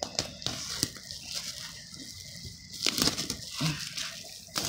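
Hands handling a cardboard board-game box: irregular rustling and scraping with sharp clicks and taps, busiest around the middle and ending with a sharp click.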